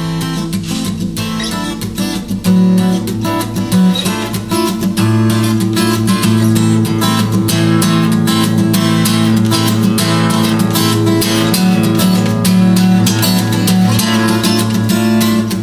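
Instrumental break of a song: acoustic guitar strummed and plucked in a quick rhythm over a band, with a fuller bass coming in about five seconds in.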